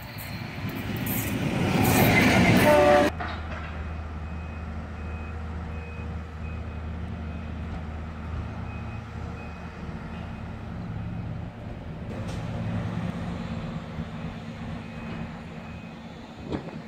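A diesel locomotive hauling passenger coaches approaches and passes, growing loud, with a short horn note near its peak. Then a passenger multiple-unit train creeps in with a steady low engine hum.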